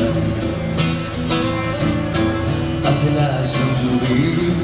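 Live music with an acoustic guitar, played through PA speakers.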